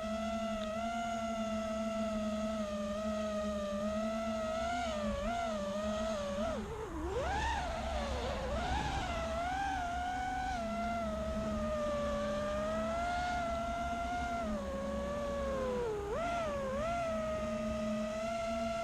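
Electric motors and propellers of an FPV racing quadcopter in flight, a steady whine whose pitch swoops down and up with throttle changes, most sharply about six to nine seconds in and again near sixteen seconds.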